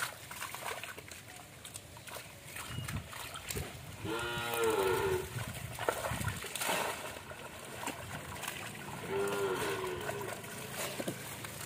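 A cast net loaded with fish being hauled out of shallow pond water, with splashing and dripping. Two long, drawn-out pitched calls sound over it, about four seconds in and again about nine seconds in, each lasting roughly a second.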